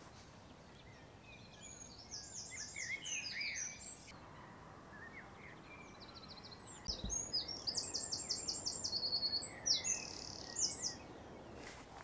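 Small songbirds singing: a spell of quick high trills and twittering about two seconds in, then a longer run of rapid repeated high notes from about six seconds until nearly the end, over a faint steady outdoor hiss.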